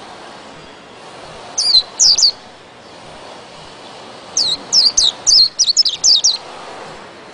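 A caged white-eye (pleci) singing in quick high notes that each slur downward: a short phrase about a second and a half in, then a longer rapid run from about four and a half to six and a half seconds in, over a steady background hiss.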